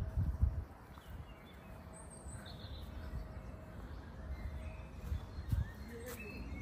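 Outdoor garden ambience with a few faint bird chirps. Low rumbles on the microphone, the loudest right at the start and another about five and a half seconds in.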